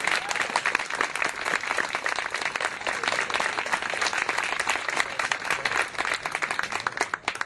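Crowd applauding: a dense, steady wash of many people clapping.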